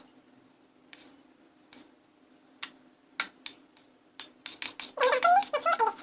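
A utensil tapping and scraping against a glass bowl as grated turnip is put into it: a few separate clinks, then a quick run of clinks and scraping in the last two seconds.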